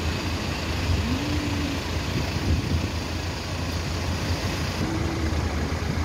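Ocean surf breaking and washing up a sandy beach: a steady rushing noise with a heavy low rumble.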